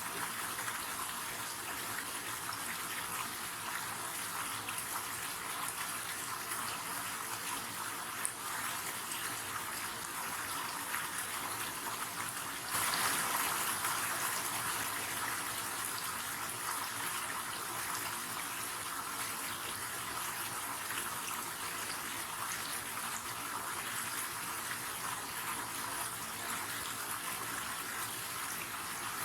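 River water rushing and splashing steadily over rocks, a continuous hiss with no pauses, becoming louder for a few seconds about halfway through.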